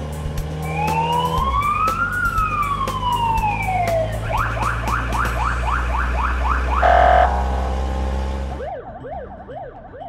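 Police car siren: a slow wail rising and then falling, switching about four seconds in to a fast yelp of about three sweeps a second, with a short loud blast near seven seconds. A steady low engine hum runs under it until it cuts off suddenly, after which a quieter, faster up-and-down siren carries on.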